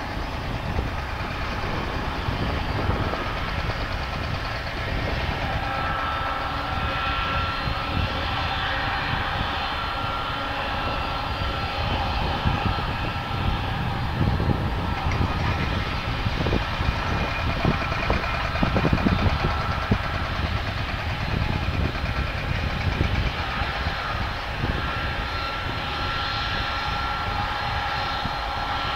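Boeing 757's jet engines running at taxi power: a steady whine with a few high tones over a low rumble.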